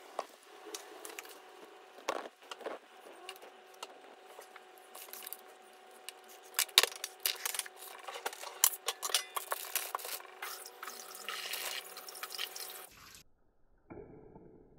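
Irregular clatter and knocks of plastic food containers being picked up and set down on a tabletop, with rustling of a plastic produce bag, over a steady low hum. It cuts off abruptly near the end.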